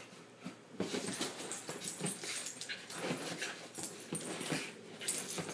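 A dog's huffing breaths and small vocal sounds during rough play with a cat, among irregular scuffling noises.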